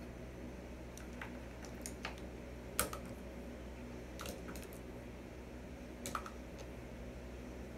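Scattered light clicks and taps of makeup brushes and cosmetic containers being handled on a vanity table while brushes are switched, the sharpest click about three seconds in, over a steady low hum.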